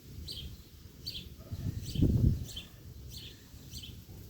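A bird chirping over and over, about twice a second, over wind rumbling on the microphone, with a strong gust buffeting it about two seconds in.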